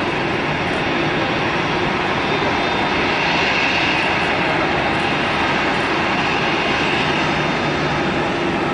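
Jet engines of a taxiing Airbus A320-family airliner at low taxi thrust: a steady rushing hiss with a whine, slightly louder about three to four seconds in.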